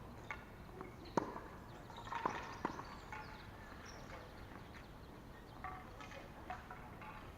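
Tennis balls being struck by rackets and bouncing on court: a handful of sharp pops in the first three seconds or so, then quieter background with faint distant voices.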